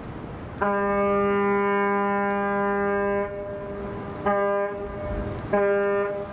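Ship's horn on a large bulk carrier sounding one long blast of about two and a half seconds, then two short blasts.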